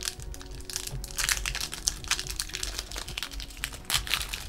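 Foil wrapper of a Pokémon trading-card booster pack crinkling in the hands as it is worked open, in dense irregular crackles.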